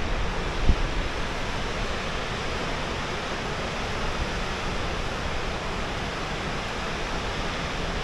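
Gullfoss waterfall, a large river pouring over rock steps into a canyon, heard as a steady, even rush of falling water.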